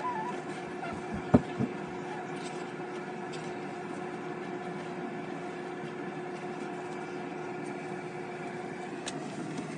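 Steady mechanical hum of a running machine, with a single knock about a second and a half in.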